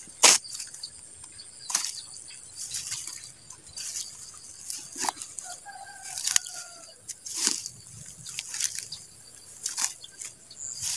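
Footsteps crunching and rustling irregularly through dry rice stubble and grass, over a steady high-pitched whine.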